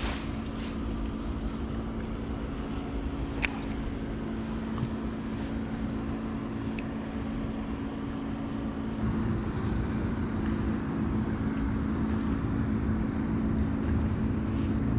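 Bow-mounted electric trolling motor humming steadily, getting louder about nine seconds in, with a sharp click about three and a half seconds in.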